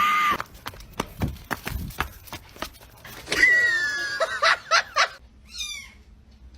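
A cat meowing, with one long call about three and a half seconds in, among scattered knocks and clicks, and short high falling squeaks near the end.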